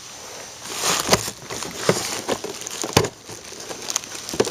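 Hands handling a die-cast scale model excavator: a few sharp clicks and knocks, with light rustling in between.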